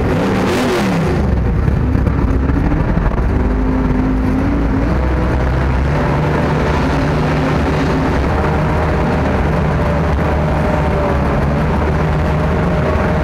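Sherp ATV's diesel engine running loud and steady, heard from inside its cab, its pitch rising and falling as it is revved. There is a brief rushing noise about half a second in.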